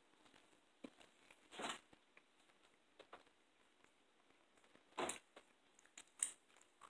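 Near silence broken by a few short, faint eating sounds: mouth noises as food is bitten and fingers are sucked clean. The loudest come about five seconds in and just after six seconds.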